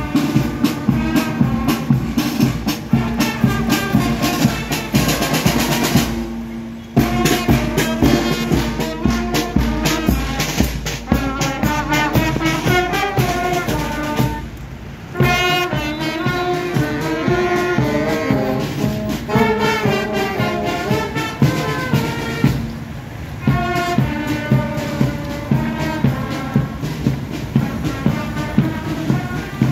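A marching band of trumpets, tubas and saxophones with snare and bass drums playing a march tune over a steady drumbeat. The music breaks off briefly three times.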